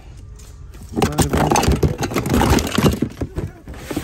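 Plastic toys and dolls clattering and rustling as a hand rummages through a bin of them. It is quieter for the first second, then busy and loud for about two seconds before easing off.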